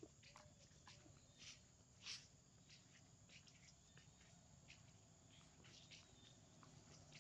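Near silence, with faint, irregular crackles of footsteps on dry leaves and dirt; the loudest crackle comes about two seconds in.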